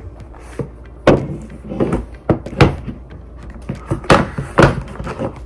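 Apple Pencil cardboard box handled on a tabletop: a series of sharp knocks and short scrapes, about five loud ones, as the box is set down and its lid is pulled off the tray.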